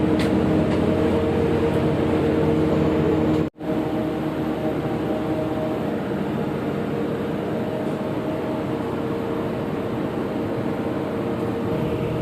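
Steady engine and cabin drone from inside a moving vehicle, with a low hum of several steady tones. It cuts out for an instant about three and a half seconds in, then carries on a little quieter.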